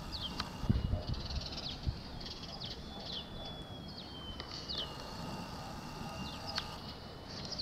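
Small birds chirping in the background: short, high, quickly falling chirps repeating irregularly, over a thin steady high whistle. A brief low rumble comes about a second in.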